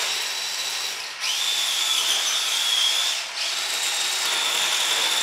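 Grave Digger Trax RC truck's small electric drive motor whining at a high pitch, cutting out briefly about a second in and again a little past three seconds.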